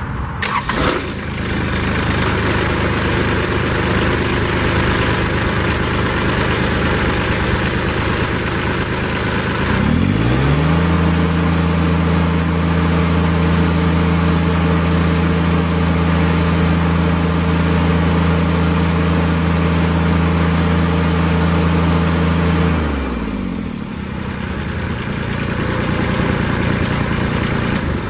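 Kubota BX25D compact tractor's three-cylinder diesel engine running at idle, then throttled up about ten seconds in to a steady high speed and brought back down to idle near the end.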